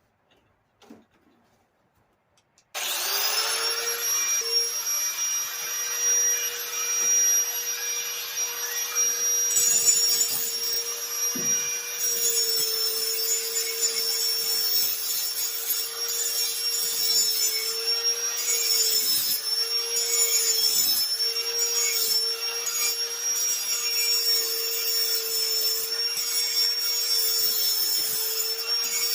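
Electric grinder spinning up about three seconds in, then running steadily against the metal exhaust pipe, its whine dipping briefly a few times under load.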